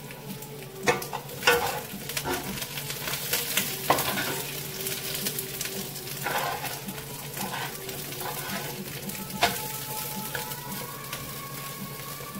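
Red bell pepper pieces sizzling in olive oil in a nonstick frying pan while a silicone spatula stirs and turns them, with scattered sharp knocks of the spatula against the pan, the loudest near the start.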